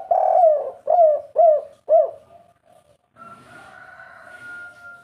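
Spotted dove cooing: a longer first coo followed by three short coos in quick succession, each dipping in pitch, all within the first two seconds. A fainter, held call follows from about three seconds in.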